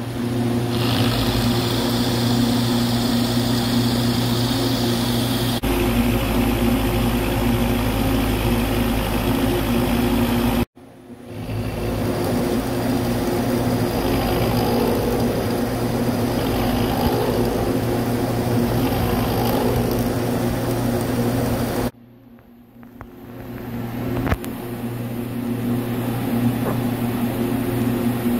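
Horizontal boring mill running with an end mill cutting a steel block: a steady machine hum with cutting noise over it. The sound breaks off abruptly twice, about 11 and 22 seconds in, and builds back up each time.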